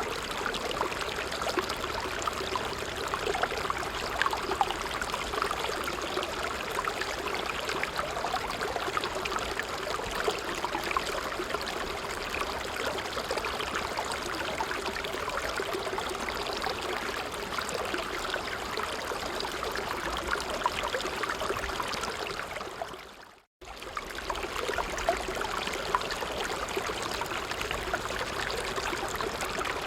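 Stream water babbling steadily. About two-thirds of the way through it fades out to silence for a moment and then comes straight back in, as at the join of a looped recording.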